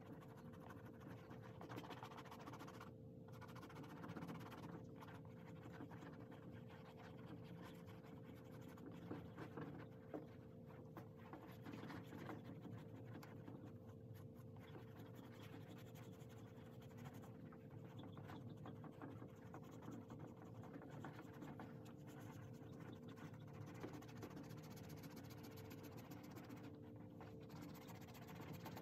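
A Saphir Gommadin rubber suede eraser rubbed back and forth over the suede of a handbag, a soft, continuous scratching that pauses briefly a few times. This is the eraser step of suede cleaning: the rubber lifts dirt and marks from the nap.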